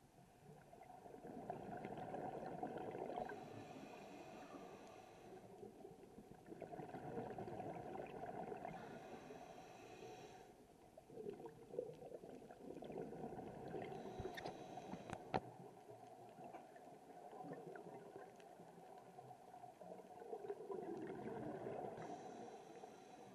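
Scuba diver breathing through a regulator underwater: slow repeated breaths, each a gurgling rush of exhaled bubbles together with a short hiss of the regulator, about four breaths, with a single sharp click about fifteen seconds in.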